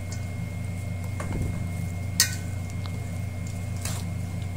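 Shredded cabbage salad being tossed with a wooden spoon and metal fork in a stainless steel bowl: soft rustling of the vegetables, with two sharp clinks of utensil on the bowl about two seconds in and near the end. A steady low hum runs underneath.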